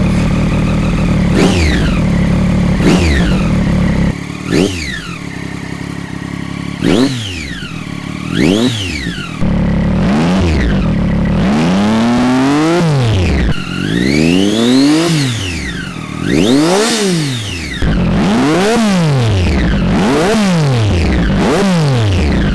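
2013 Triumph Daytona 675R's inline three-cylinder engine through an Austin Racing V3 titanium end can with the baffle in, idling and then blipped about a dozen times, each rev rising and falling quickly. It has a really nice bark.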